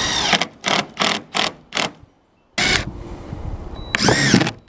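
DeWalt cordless driver driving a screw through a pine board into a roof beam, worked in trigger bursts. It runs at the start, then gives about five quick short blips, pauses, and runs twice more near the end with the motor spinning up and back down.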